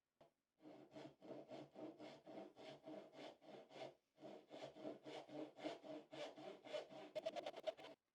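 Hand saw cutting wood in even back-and-forth strokes, about four a second. It pauses briefly about four seconds in, then resumes, with quicker, shorter strokes near the end.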